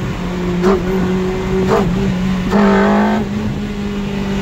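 Ferrari 360 Modena's 3.6-litre V8 running steadily at light throttle, heard from inside the cabin. The pitch steps up slightly about halfway through.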